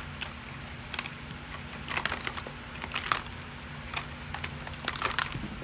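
Irregular light clicks and taps of plastic makeup cases being handled, a little louder around the middle and near the end.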